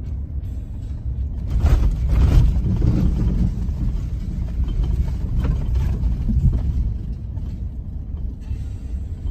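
A vehicle driving: a steady low engine and road rumble, swelling louder for a second or so about two seconds in.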